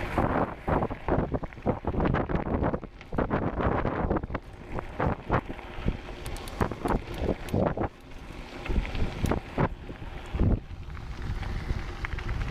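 Wind buffeting the microphone of a camera carried on a moving bicycle, in uneven gusts with short knocks.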